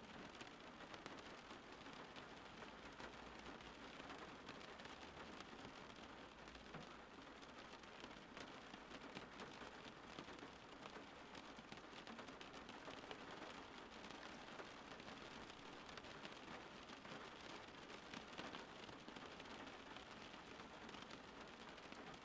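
Steady, soft rain falling, an even hiss of many small drops pattering, with no change through the stretch.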